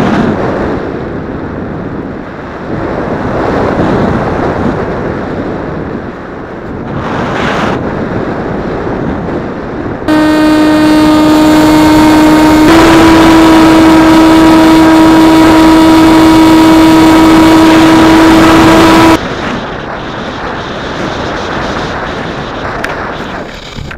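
Wind rushing over an on-board camera on an electric RC plane, then the plane's electric motor and propeller whining loud and steady at full power from about ten seconds in, stepping up a little in pitch a few seconds later and cutting off suddenly, leaving wind noise again as the plane glides low.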